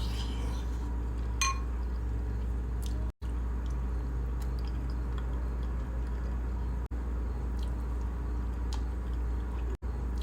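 Close-up chewing of mac and cheese: soft, wet mouth sounds and small clicks over a steady low hum, with one sharp ringing clink about a second and a half in. The sound drops out briefly three times.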